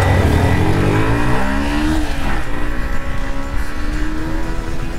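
Motorcycle engine accelerating hard: its pitch climbs for about two seconds, drops at a gear change, then climbs again more slowly, with wind noise on a helmet-mounted microphone.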